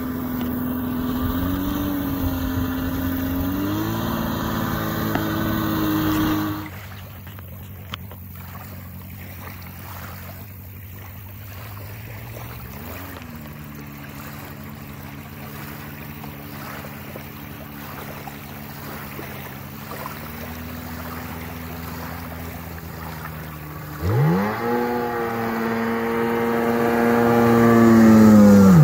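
85 hp outboard on a jet-drive jon boat running at speed across the water. The engine note drops away after about six seconds as the boat is farther off, then near the end it grows loud as the boat passes close and falls sharply in pitch as it goes by.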